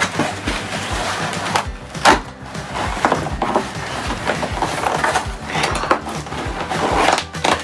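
Cardboard shipping box being pulled open, its taped flaps tearing and scraping, over background music with a steady beat.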